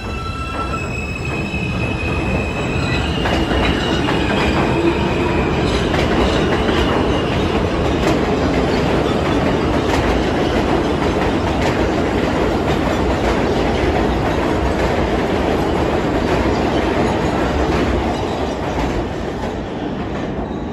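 R160B subway train pulling out and accelerating along the platform. Its propulsion whine steps upward in pitch over the first few seconds, then the loud rumble and clicking of wheels on rail take over, fading near the end as the last car leaves.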